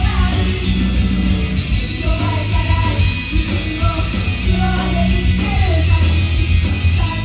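Loud live rock music over a club PA, heavy on bass and drums, with a woman's voice singing the melody.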